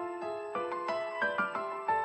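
Soft piano music, a melody of single notes over chords, several notes a second.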